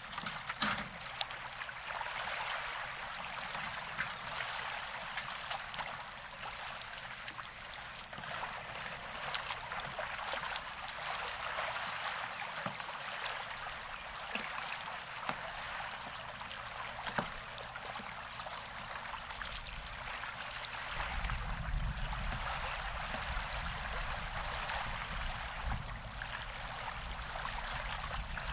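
Small waves lapping and trickling at a lake shore: a steady wash of water with faint splashes. About two-thirds of the way through, a low rumble of wind on the microphone comes in under it.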